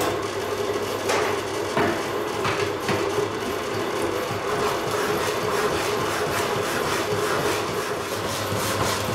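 A Rapidor power hacksaw running, its blade cutting through a block of EN8DM free-cutting steel. It makes a rhythmic rasp, stroke after stroke, over a steady motor hum.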